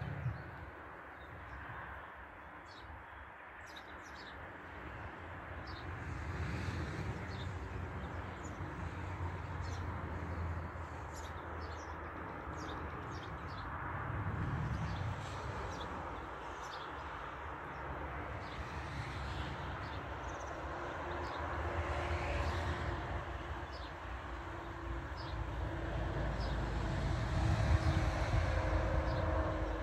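Outdoor ambience: small birds chirping in short, scattered notes over a low, swelling rumble. A steady mechanical hum comes up and grows louder in the last several seconds.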